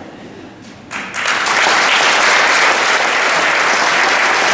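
Audience applauding: the clapping comes in sharply about a second in and holds steady and loud.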